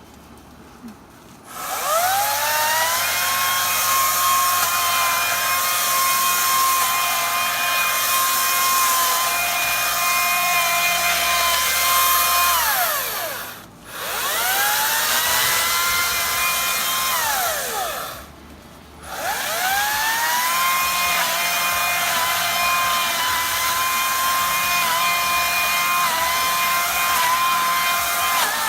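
Chainsaw cutting into bushes. Its motor winds up to a steady high whine about a second and a half in and holds under the cut. It winds down and picks back up just before halfway, then drops out and revs up again about two-thirds of the way through.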